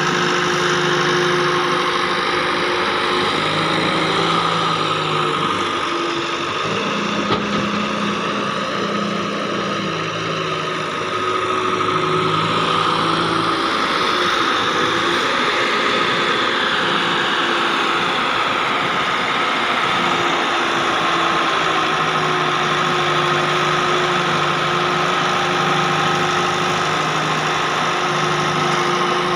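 Hitachi wheeled excavator's diesel engine running steadily while it digs, its speed stepping up and down as the boom and bucket work. A single short knock about seven seconds in.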